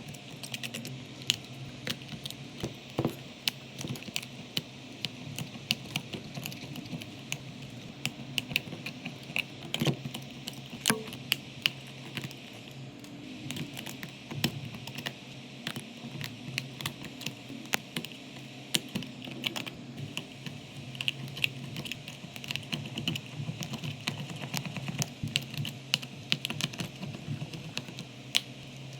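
Small hand tools clicking and tapping against phone parts in quick, irregular strokes, like fine repair work, over a low steady hum.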